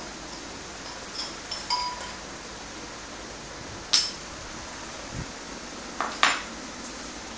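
Steel parts of a small hand-operated hydraulic press clinking against each other as a steel bush is handled on the press table: about six short metallic clinks, one a second or so in ringing briefly, the loudest at about four and six seconds in, over steady background noise.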